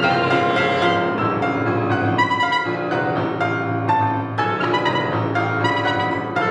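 Clarinet and piano playing together: the clarinet holds sustained melodic notes over struck piano notes and chords.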